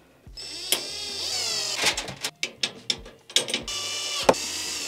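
Cordless drill-driver screwing a case fan into a PC case's front panel: the motor whines in several short runs, its pitch gliding as it speeds up and slows under load, with a few sharp clicks between runs.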